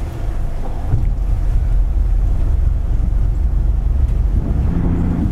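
Motor cruiser's engine running steadily, a continuous low rumble heard from inside the enclosed wheelhouse.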